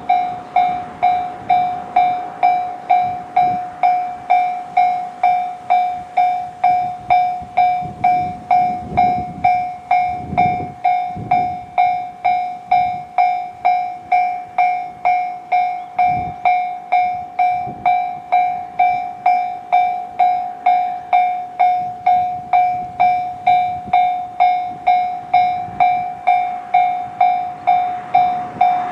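Japanese railway level-crossing warning bell sounding the JR standard electronic tone, a bright ding repeating steadily just under twice a second, the signal that a train is approaching. Fainter low rumbling comes and goes underneath.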